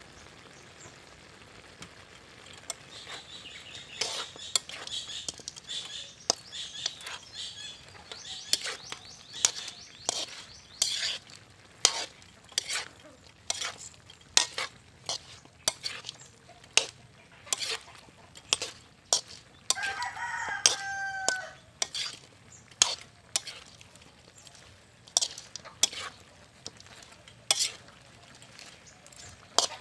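Metal ladle stirring duck adobo in a steel wok, scraping and clinking against the pan again and again, starting a few seconds in. A rooster crows once, briefly, about two-thirds of the way through.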